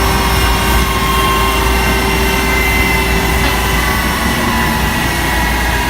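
Jet aircraft engines running: a steady high whine over a low rumble.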